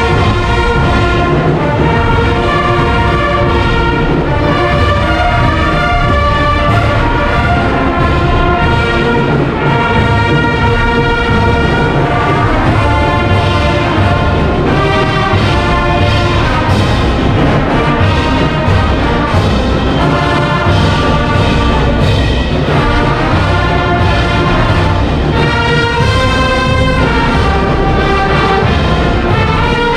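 Brass band music with drums, loud and steady, its notes held and changing about every second.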